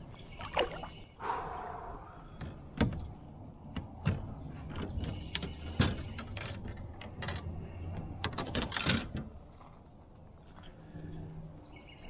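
A largemouth bass splashing as it is lipped and lifted out of the water beside a kayak. This is followed by a string of sharp clicks and knocks as the fish is held and unhooked on board.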